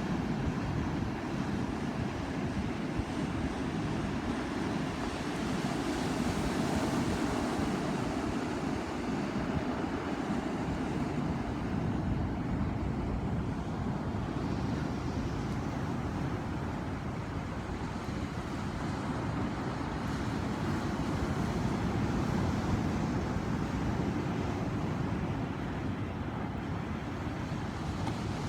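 Ocean waves: a continuous rush of surf that swells and eases slowly, with wind rumbling on the microphone.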